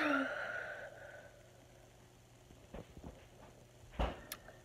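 A girl's short sigh-like vocal sound at the start, followed by near quiet with a few faint clicks and a soft knock about four seconds in.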